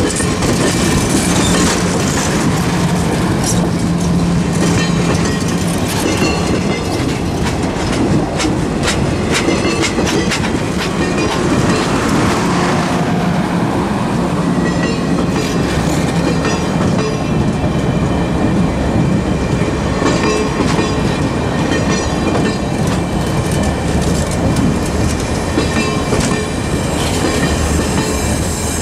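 Streamlined stainless-steel passenger cars of a passing train rolling by close up, their wheels clicking over the rail joints over a steady rumble. Thin high ringing tones from the wheels come and go.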